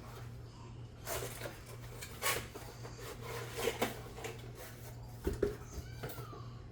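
Coffee maker packaging being handled during unboxing: scattered rustles and knocks of cardboard and packing material, over a steady low hum.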